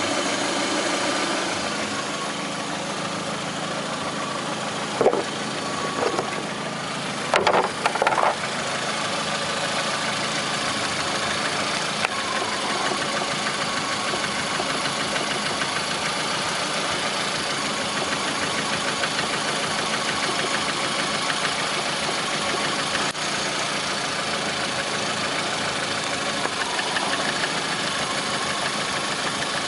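Lada Priora's 21126 1.6-litre 16-valve four-cylinder engine running steadily at idle, recorded to show a knock in the engine. A few brief louder sounds come about five to eight seconds in.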